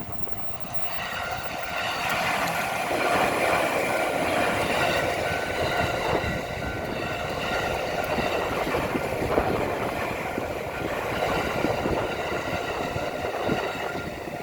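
A JR Tokaido Line train passing over a level crossing, its wheels clattering over the rails. The noise builds about a second in and stays loud, while the crossing's electronic warning bell rings steadily.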